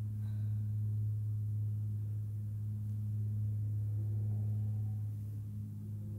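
A steady low drone, one deep held tone with a fainter overtone above it, with faint higher tones drifting in and out, as a sustained ambient soundtrack.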